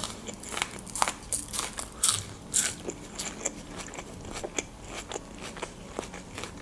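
Raw green onion stalk bitten and chewed, with many crisp crunches and crackles. The crunches come thick at first and thin out in the second half.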